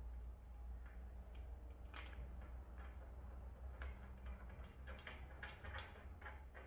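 Small metal parts handled on a steel bench: scattered faint clicks and taps of brass fittings and a small steel plate, a few early and more in a quick run in the second half, over a steady low hum.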